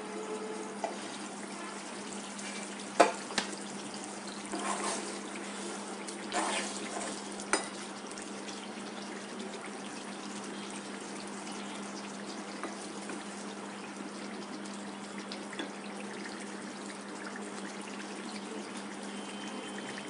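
Thick fish curry simmering and bubbling in an aluminium pot over a gas burner, under a steady low hum. A few clanks and knocks of the lid and spatula against the pot come between about one and eight seconds in, the sharpest about three seconds in.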